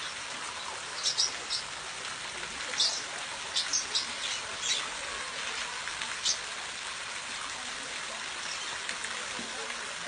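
Steady rush of a small waterfall splashing into a rock pool, with short high bird chirps now and then over the first six seconds or so.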